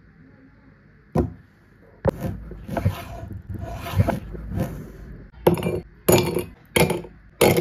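Kitchen knife cutting a lime on a wooden cutting board: one sharp knock, then a run of cuts about two a second. Near the end come louder, crisper strokes, about one every half second.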